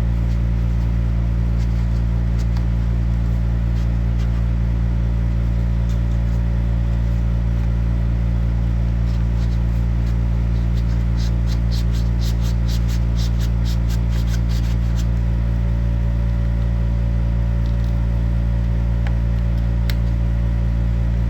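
A steady low hum runs throughout, with a run of quick, light clicks roughly halfway through.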